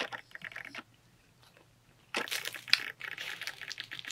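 Crisp-crusted naan flatbread being torn apart by hand, crackling. There is a short burst at the start, then a longer, denser stretch of crackling from about two seconds in.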